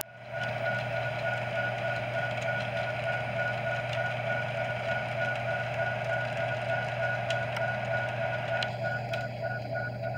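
Model trains running along a home layout: steady motor hum and rumble on the track, with a steady high tone that starts pulsing rapidly near the end.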